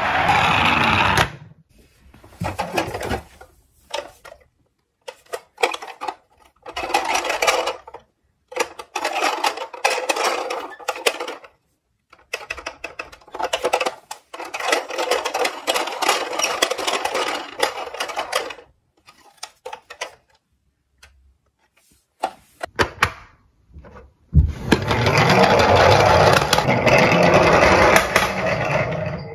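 A battery-powered toy ambulance's sound effects cut off about a second in. Plastic toy cars then clatter and rattle in a cardboard box in several bursts as they are rummaged. In the last five seconds a toy police car's electronic sound effects play loudly from its small speaker.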